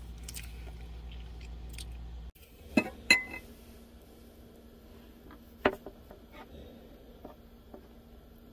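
Metal fork clinking and scraping against a ceramic mug as it digs into a mug brownie: two sharp clinks about three seconds in and another near six seconds, with lighter taps after. A low steady hum runs under the first two seconds and cuts off suddenly.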